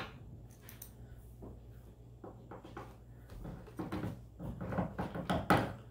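Hand screwdriver driving a small screw into the plastic end cap of a roller window shade, with the clicks and scrapes of the cap being handled. Faint at first, then busier from about halfway, with the loudest click just before the end.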